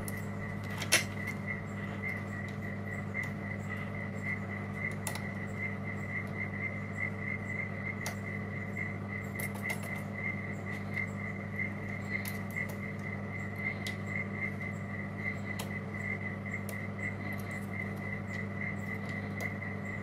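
Faint, sparse metallic clicks of a Lishi LW4 2-in-1 pick working the pins of a Lockwood deadlatch cylinder held in a vise, the clearest about a second in. Under them run a steady low hum and a rapid, even high-pitched pulsing tone.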